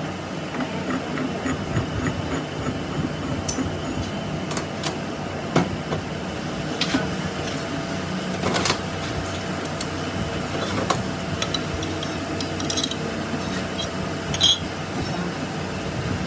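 Workshop machinery running with a steady hum, with sharp metallic clicks and knocks every second or two.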